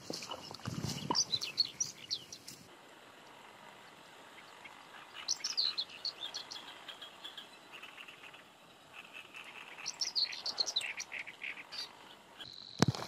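Small birds chirping in three short bursts of rapid high calls, with quiet stretches between.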